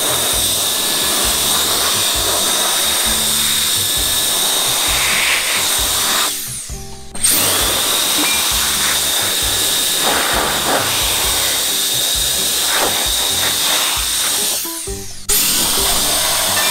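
KOJIHOMU handheld battery electric air duster running flat out, its fan motor giving a steady high whine over a rush of air as it blows water droplets off a wet car. Twice, about six and fifteen seconds in, the whine drops away for under a second and then spins back up. Background music plays underneath.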